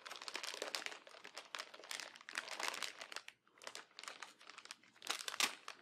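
Plastic anti-static bag crinkling as hands handle and open it, a quick, irregular crackle with a brief lull a little past halfway and a louder burst of crinkling near the end.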